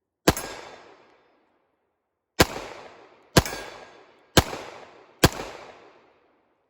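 Five gunshots from a firearm at a shooting range: one shot, then about two seconds later four more about a second apart, each ringing out and fading.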